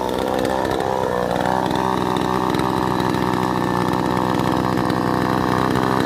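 Small two-stroke chainsaw revving up over the first second or so, then held steady at high revs.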